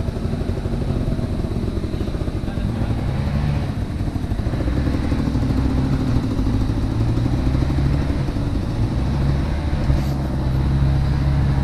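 Dirt bike engine running under throttle on a muddy enduro trail, its pitch rising about four seconds in and then holding.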